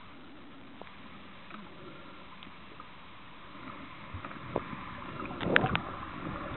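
Water noise picked up by a camera held underwater: a steady hiss with scattered faint clicks, growing louder and busier near the end, with a few sharp clicks and a burst of water noise about five and a half seconds in.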